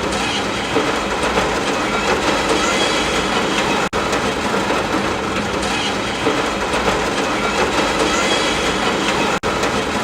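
Steady rain noise, a continuous even hiss, cutting out for an instant about four seconds in and again near the end.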